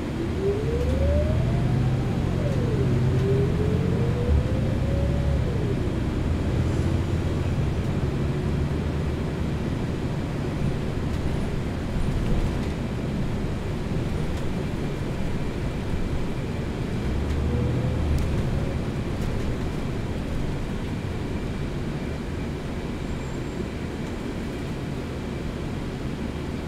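Inside a moving city bus: a steady engine and road rumble. A transmission whine rises as the bus gathers speed, drops sharply at a gear change about two seconds in, climbs again and drops at a second shift a few seconds later, and rises briefly once more near the end.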